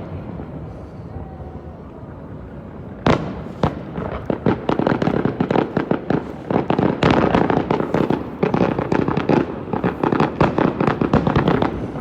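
Aerial fireworks: after a low rumble, a sharp bang about three seconds in, then a dense, rapid run of bangs and crackling bursts.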